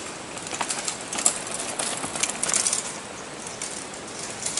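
Downhill mountain bike passing close on a dry dirt trail: tyres crunching and crackling over dirt and dry leaves, with clicks and rattles from the bike. It is loudest between about one and three seconds in, then fades.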